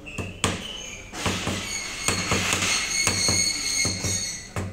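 A fluted metal bundt cake pan being knocked repeatedly on a stainless-steel worktable to shake out the stuck crumbs: a quick, irregular series of a dozen or more sharp metallic knocks. A steady high tone runs underneath.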